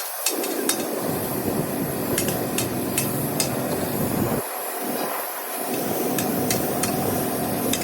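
Workshop noise with irregular, sharp hammer taps on metal, a few per second over a steady background din.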